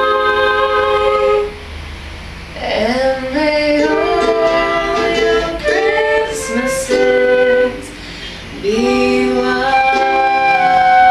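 A woman singing a melody to ukulele accompaniment, with a flute playing held notes alongside; the music dips briefly twice between phrases.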